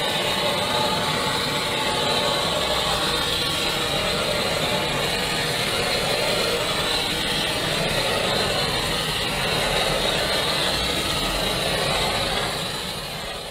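Handheld blowtorch flame burning with a steady hiss as it is passed over wet epoxy resin. The sound drops away near the end.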